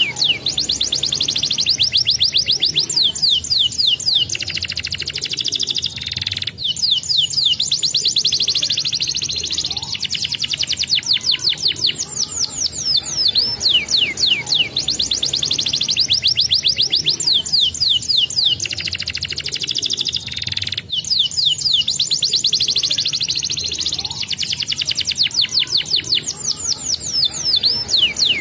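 Domestic canary singing a fast rolling song: long runs of rapid, sharply falling whistled notes, in phrases broken by short pauses every few seconds.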